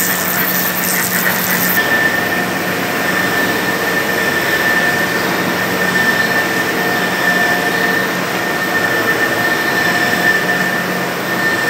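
Industrial machinery of an extrusion lamination line running: a steady, loud rush of machine noise with a constant low hum and a high whine. A high pulsing hiss cuts out about two seconds in.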